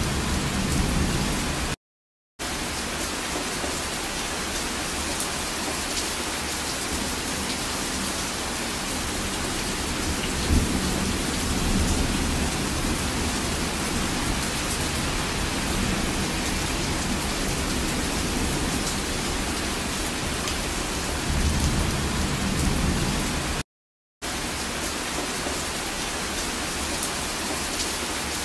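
Rain falling steadily, with a few low rumbles of thunder swelling and fading. The sound cuts out for a moment twice.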